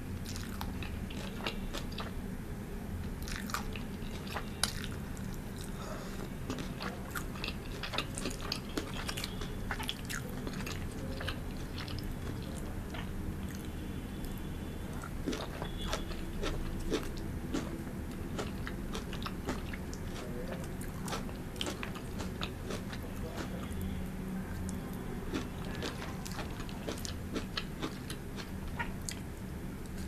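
Close-miked chewing and biting of pan-fried noodles and crisp vegetables, with many small crisp crunches and mouth clicks scattered throughout.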